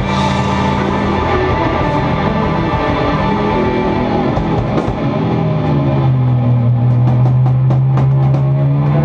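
Live blues-rock band playing: two electric guitars, an electric bass and a drum kit. From about halfway through, a long low note is held under a run of rapid drum and cymbal hits.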